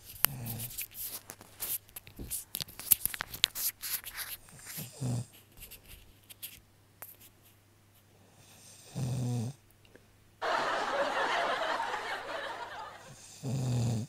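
A man snoring in his sleep: four short, low snores about four seconds apart, with a long breathy hiss between the last two. Scattered rustling clicks in the first few seconds.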